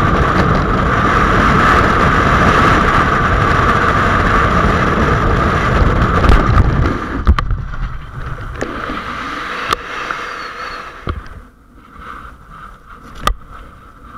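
Freefall wind rushing loud and steady over the camera's microphone. About seven seconds in it drops away as the parachute opens, fading to a much quieter rustle under the canopy with a few sharp knocks.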